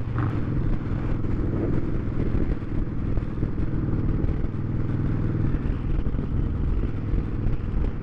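Motorcycle engine running steadily while being ridden, heard from the bike itself.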